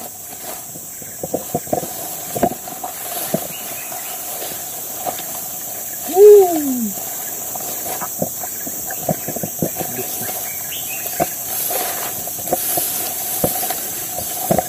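Footsteps pushing through tall grass and brush, with stems and twigs crackling in short irregular clicks, over a steady high insect drone. About six seconds in, one brief loud call falls in pitch, the loudest sound.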